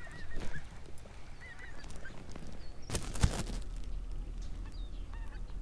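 Birds calling in several short wavering calls, with one sharp knock about three seconds in.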